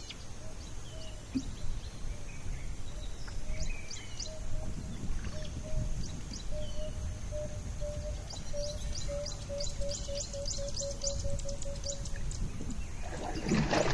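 A bird calling a long series of short, low hooting notes that start slowly and steadily speed up before stopping, with higher chirps from other birds over a low steady background rumble.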